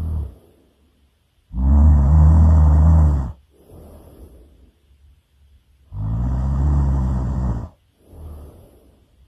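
A person snoring loudly: two long snores about four and a half seconds apart, each followed by a softer, breathy exhale.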